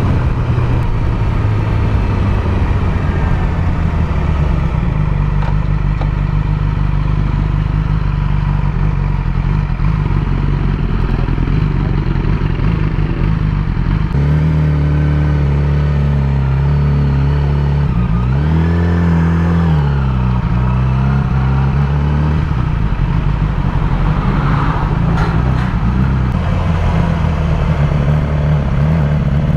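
Yamaha R6 inline-four motorcycle engine heard from the saddle while riding. About halfway through it drops to idle at a standstill, its revs rise and fall once, then it pulls away again near the end. The bike has an unstable idle and jerky low-speed running, which the owner suspects comes from a faulty spark plug or ignition coil.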